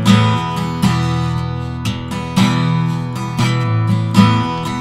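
Acoustic guitar strummed in a steady rhythm, each strum's chord ringing on until the next.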